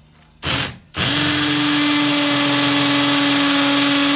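18-volt Ryobi cordless drill boring into a hard concrete lintel with a special masonry bit, running without hammer action. After a short burst, it runs steadily from about a second in, with a constant whine as the bit cuts in.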